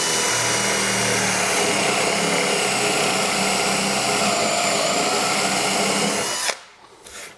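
Power drill boring into Douglas fir with a 20 mm Famag Bormax Forstner bit: a steady motor whine over the bit's cutting noise, stopping abruptly near the end.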